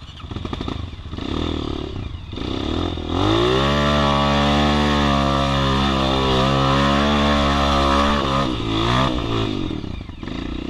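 Dirt bike engine under the rider, running unevenly at first, then opening up about three seconds in and holding steady high revs for several seconds before backing off near the end.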